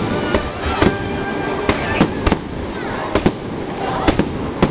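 Fireworks going off: a rapid, irregular string of sharp bangs, around ten in under five seconds.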